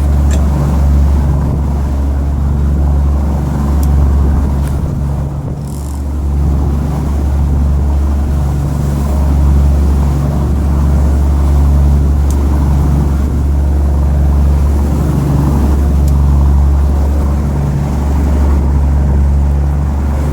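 Fishing boat's engine running steadily under way, with a low hum that swells and fades about once a second and water and wind noise over it.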